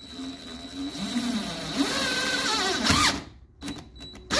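Cordless drill driving a self-tapping screw through vinyl-covered trim into the car body. The motor whine wavers and grows louder under load for about three seconds, then stops abruptly, with a short burst from the drill near the end.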